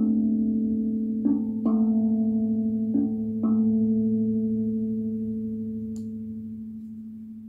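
Meinl Octave steel tongue drum in D Kurd struck with mallets: about five notes in the first three and a half seconds, then the last notes are left to ring and slowly fade away.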